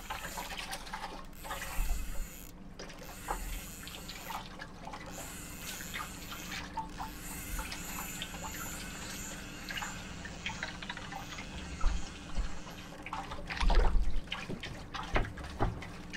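Water splashing and dripping as mackerel on a feather rig are reeled up to the surface beside a small boat, with scattered small clicks and a few louder knocks near the end as the fish are swung out of the water.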